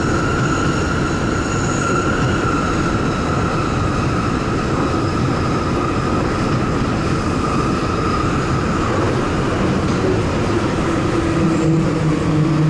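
Sendai Subway Tozai Line 2000 series linear-motor metro train running through a tunnel, heard from the driver's cab: a steady rumble of running noise with a high whine that slowly falls in pitch. Near the end a lower hum comes in.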